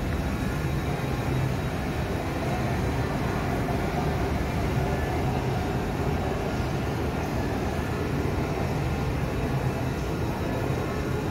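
Steady, even background noise with a low rumble and no distinct events.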